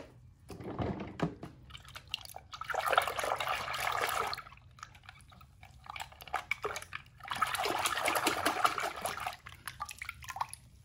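Water sloshing and splashing in a plastic tub as a hand moves through it, in two bouts of about two seconds each, with smaller splashes before and between.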